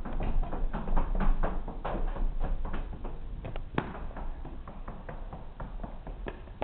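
Footsteps walking on a hard floor: quick, uneven knocks a few times a second over a low steady rumble.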